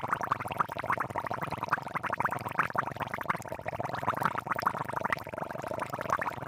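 Water trickling and spattering from a miniature shower pipe onto a small platform and pool: a dense, irregular crackle of drips and splashes.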